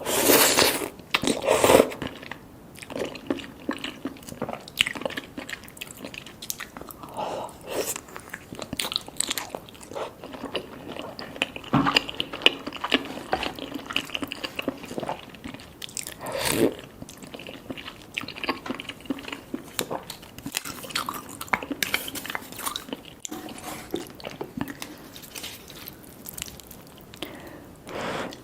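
Close-miked eating of cheesy spicy noodles and soft-boiled eggs: irregular chewing and wet mouth smacks, with a few louder bursts of about a second, the first right at the start.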